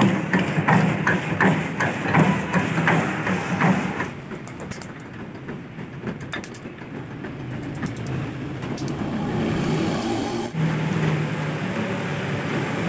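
Wooden pestle knocking and grinding almonds in a bowl, a regular beat of about three knocks a second. Then, much quieter, a small hammer tapping almond shells open on a stone block, in faint sharp clicks.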